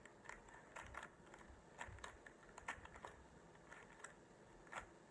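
Faint plastic clicks of a Rubik's Cube's layers being turned, several a second at an irregular pace.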